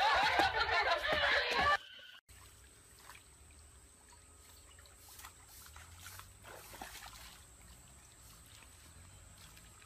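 Loud laughter from several people, cut off abruptly about two seconds in. After that, faint trickling and a few light splashes of shallow stream water as hands feel about in it, under a faint steady high tone.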